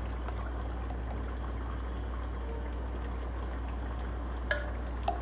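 Chicken cooking in an open pressure cooker on a gas burner: a steady, low-level sizzle over a low hum. A spoon clinks twice near the end while masala is spooned in.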